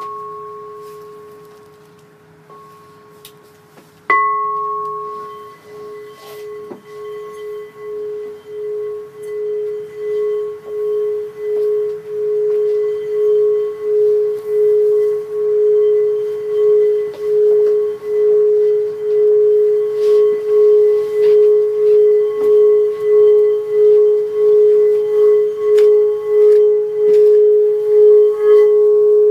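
Singing bowl struck twice, at the start and again about four seconds in, then rubbed around its rim so its single low hum swells and wavers in a steady pulse, just over one beat a second, growing louder.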